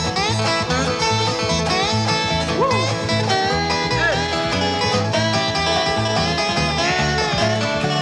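Bluegrass string band playing an instrumental break with banjo and guitar over a steady rhythm, the lead line full of sliding notes.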